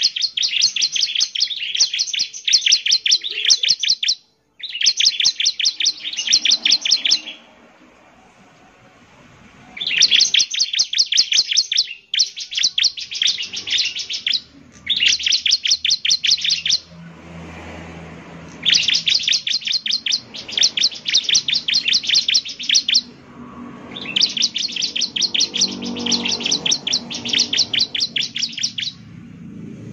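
Bar-winged prinia (ciblek) singing in its lively 'gacor' style. It gives rapid, evenly repeated high chirps at about ten notes a second, in some seven bouts of a few seconds each with short pauses between.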